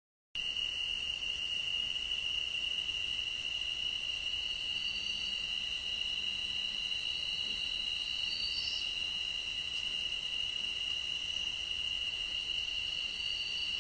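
Night insect chorus: a continuous, steady high-pitched trill from crickets, starting and stopping abruptly.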